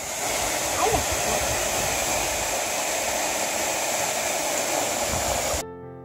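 Steady rush of water falling at the foot of the David waterfall, cut off suddenly about five and a half seconds in by music.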